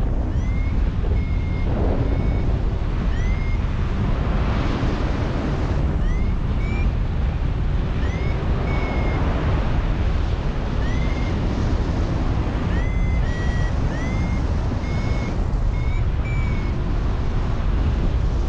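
Paragliding variometer beeping, short upward-curving electronic beeps about once a second, the audio signal that the glider is climbing in lift. Over steady heavy wind rumble on the microphone.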